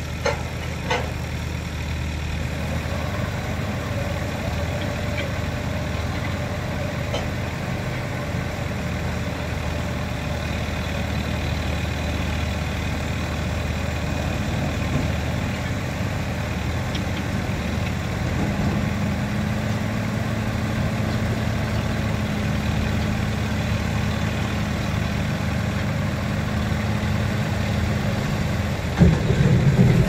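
JCB backhoe loader's diesel engine running steadily. Partway through, a steady higher note comes in and holds for about ten seconds. There are a couple of light knocks at the start and a loud knock just before the end.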